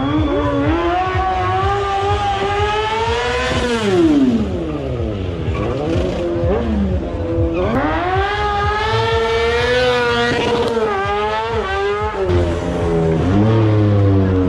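Drift car's engine revving hard up and down, its pitch climbing and falling several times, with a steep drop about four seconds in and a run of quick rising sweeps around ten seconds in.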